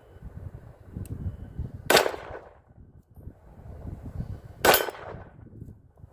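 Two pistol shots about three seconds apart, each a sharp crack with a short ringing tail.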